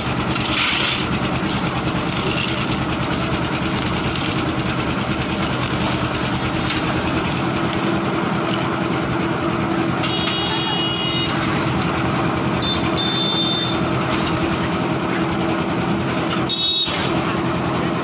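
Engine of a concrete mixer and lift machine running steadily under load, with a held low hum. A few short high-pitched beeps or toots cut in around the middle and near the end.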